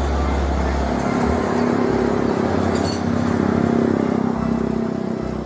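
Heavy fuel tanker truck driving past on an open road, its engine note rising and swelling to a peak about four seconds in, then fading as it pulls away, over steady tyre and traffic noise.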